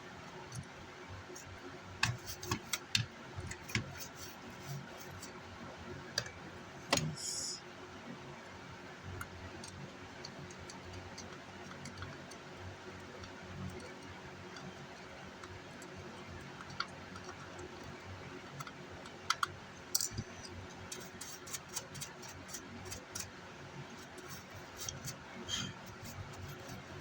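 Scattered light clicks and taps of small tools and parts being handled at an electronics workbench, some in quick clusters, over a steady low hum, with a brief hiss about seven seconds in.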